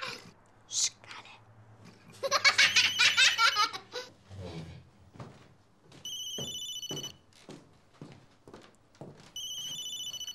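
Children's voices and laughter at the table, the loudest sound, then a phone's electronic ringtone rings twice, each burst about a second long and a few seconds apart.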